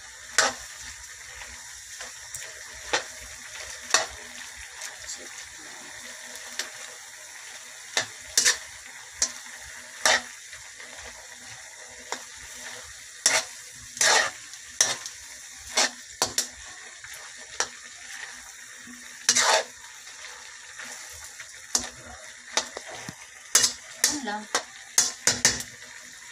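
Pancit canton noodles with cabbage and carrots sizzling steadily in a wok while a metal spatula scrapes and clinks against the pan every second or two as they are tossed, with a quick run of strikes near the end.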